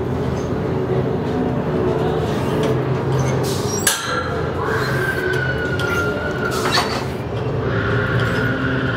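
Steady low mechanical rumble and hum, like running machinery, with a sharp metallic clank about four seconds in and another about seven seconds in, and a thin high tone sounding briefly between them.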